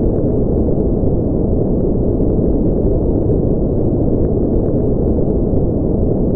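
Steady, loud, deep rumbling noise that holds even, with no breaks or distinct events.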